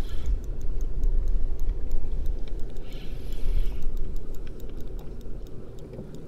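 Spinning reel being cranked to bring in a fish, with faint scattered ticks, over a loud, uneven low rumble and a faint steady hum. There is a short hiss about three seconds in.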